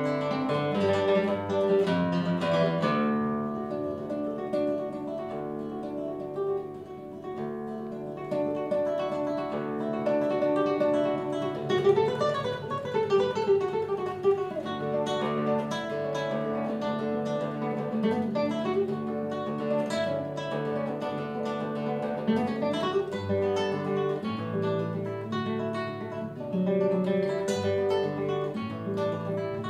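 Solo classical guitar played fingerstyle: a steady stream of plucked, ringing notes and arpeggios, with runs that climb and fall back about twelve seconds in.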